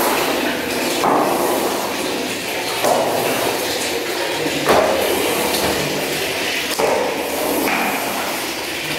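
Floor squeegee pushing water across wet tiles in repeated strokes about every two seconds, each starting with a knock of the blade on the floor followed by a scraping swish.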